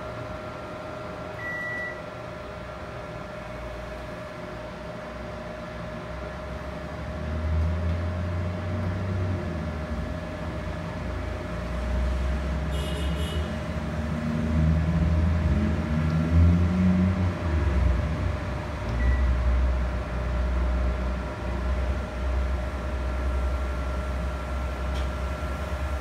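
Panasonic CS-PU9TKP split air conditioner's indoor unit beeps once about two seconds in as it takes the remote's power-off command, then beeps more faintly near the end as it is switched back on. Under it runs a steady hum, and a low rumble grows louder from about seven seconds in.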